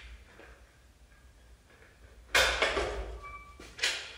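Propeller hub being pushed onto the engine's prop flange and bushings: a sudden loud clunk about two seconds in that trails off in a scrape, then a second, shorter clunk near the end.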